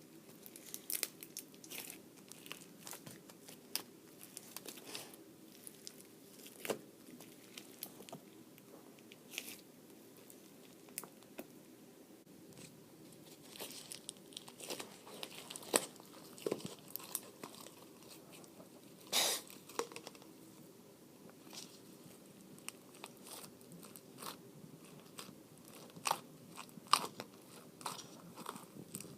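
Floam slime being squeezed and poked by hand: irregular crunching and crackling from the foam beads in the slime, with sharp pops scattered throughout.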